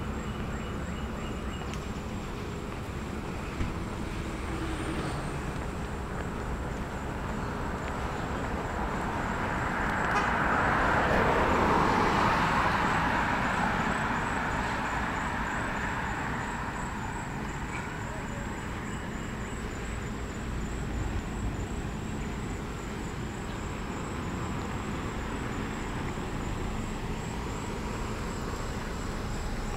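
A car passing on the road: its tyre and engine noise swells to a peak about eleven seconds in, then fades over several seconds, over steady traffic hiss.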